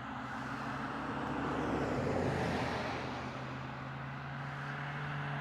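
A road vehicle passing by: its tyre and engine noise swells to a peak about halfway through, then fades. Under it runs a steady low hum.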